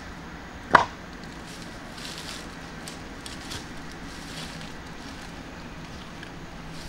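A single sharp clack of stone knocking against stone just under a second in, followed by faint rustling and steps in grass and dry leaves.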